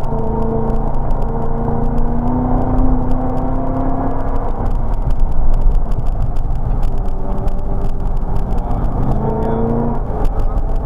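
Chevrolet Corvette C6's V8 engine pulling hard on track, heard from inside the car over tyre and wind noise. Its pitch climbs slowly over the first few seconds, then rises again briefly near the end.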